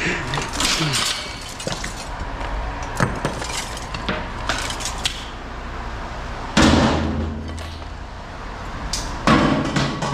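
Pieces of scrap metal tossed into a scrap bin, clinking and clanking, with two louder crashes about two-thirds of the way through and near the end.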